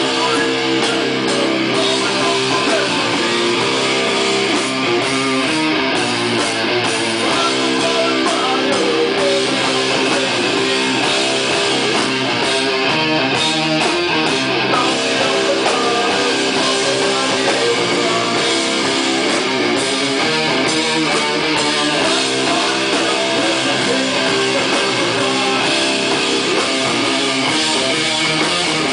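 Live heavy metal band playing loud: distorted electric guitars over bass and drums.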